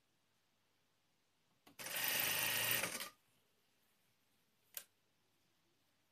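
Industrial sewing machine running in one short burst of about a second and a half, stitching bias tape onto a knit fabric edge, then a single sharp click a little later.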